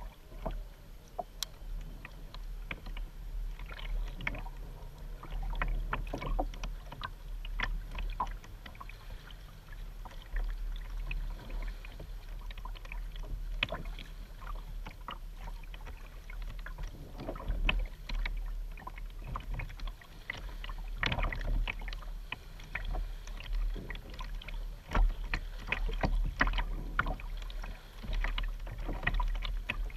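Double-bladed paddle dipping and splashing on alternate sides of a Vibe Yellowfin 100 sit-on-top plastic kayak, a stroke every second or two, with water dripping off the blades. A steady low rumble runs underneath.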